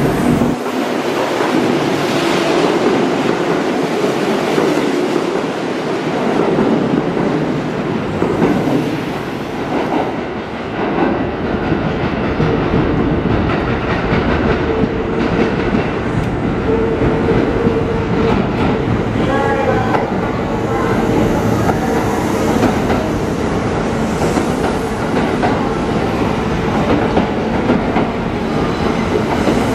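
Electric train running through the station, its wheels clattering over rail joints. A deeper rumble builds from about ten seconds in, with a steady hum partway through.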